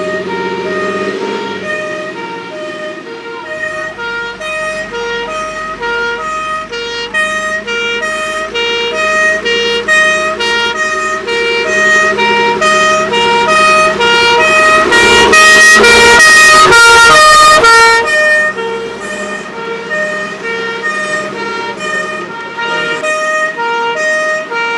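Fire engine's two-tone siren sounding, high and low notes alternating about once a second, over the truck's engine. It grows louder and is loudest about two-thirds of the way through, when a wash of noise from the vehicle joins it, then falls back.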